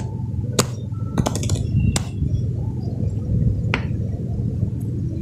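A faux-leather journal with a strap closure being unclasped and opened by hand: a few sharp clicks and taps spaced irregularly over a steady low hum.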